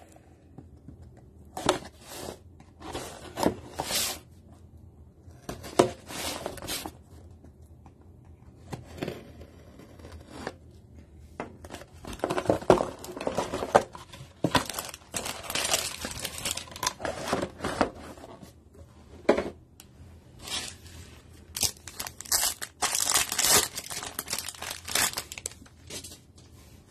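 A utility knife slicing open a sealed cardboard trading-card booster box, then foil card packs crinkling and tearing open. The sound is irregular scraping and rustling with short pauses, busier in the second half.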